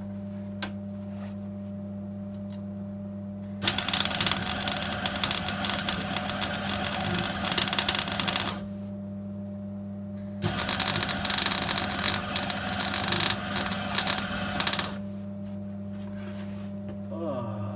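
Arc welding on steel bodywork: two runs of crackling weld, each about five seconds long, the second starting about two seconds after the first stops. A steady low hum sounds underneath throughout.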